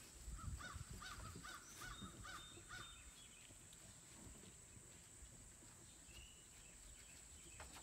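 A faint run of about seven short, quick animal calls in the first three seconds, then near quiet with a steady, thin high-pitched hiss.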